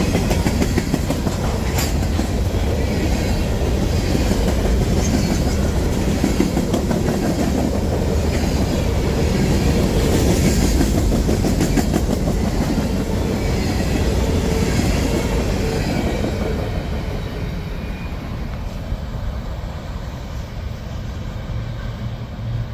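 CSX freight train of covered hopper cars rolling past, its wheels clattering steadily over the rails. The sound eases and fades in the last several seconds as the end of the train passes and moves away.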